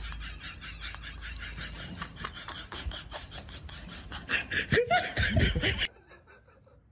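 A person laughing in quick, breathy bursts, several a second, louder about four and a half seconds in, then cutting off suddenly about a second before the end.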